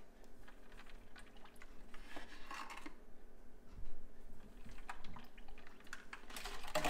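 Granulated sugar poured from a plastic measuring cup into a pitcher of iced hibiscus tea: a soft pouring hiss about two seconds in, with scattered light taps and a louder knock near the middle.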